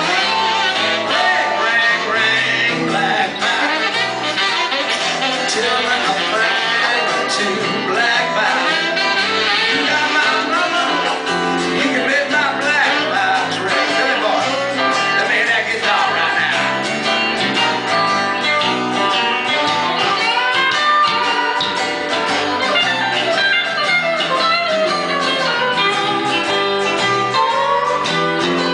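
Live blues band playing, with guitar to the fore over bass guitar, the music steady and unbroken.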